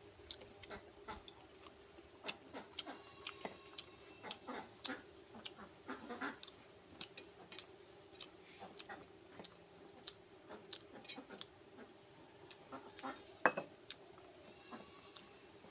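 Close eating sounds of a person eating rice and fish by hand: many soft, irregular chewing and lip-smacking clicks, with one sharper click near the end. A faint steady hum runs underneath.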